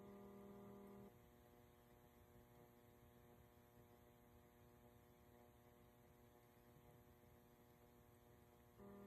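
Near silence with a faint steady hum. The hum gets louder for about a second right at the start and again near the end, switching on and off abruptly.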